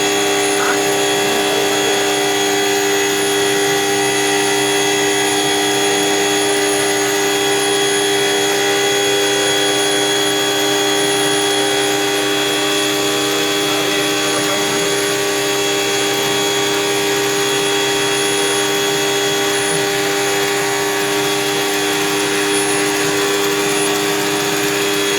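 Motorised drain-cleaning machine running steadily, a constant motor hum with a noisy whir over it, working through a blocked drain.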